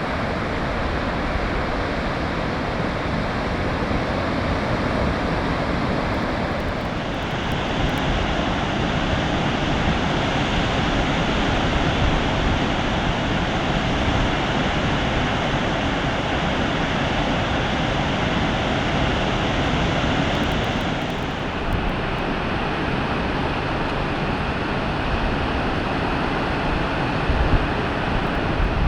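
Steady rush of ocean surf from typhoon swell, with wind noise on the microphone. The tone of the noise shifts abruptly about 7 seconds in and again about 21 seconds in.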